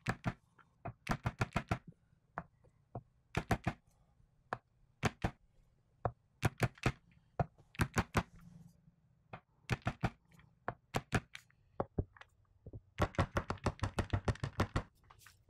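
Rubber mallet tapping a jatoba hardwood block to drive string ferrules into a swamp ash Telecaster body. Sharp knocks in quick runs of several taps with short pauses between, the densest run near the end.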